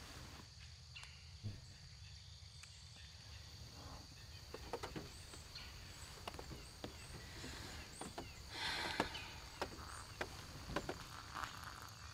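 Faint woodland ambience from the film's soundtrack: a steady high insect drone, with short chirps repeating every half second or so through the middle, and scattered light clicks and taps. A brief burst of noise comes about eight and a half seconds in and is the loudest sound.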